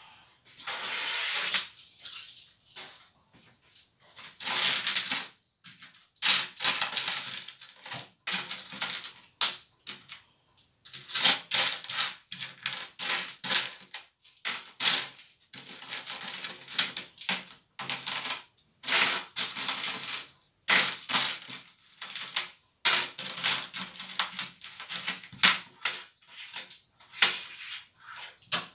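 Loose coins clinking and rattling in a plastic bowl as hands rummage and sift through them: rapid, irregular clatter with short pauses.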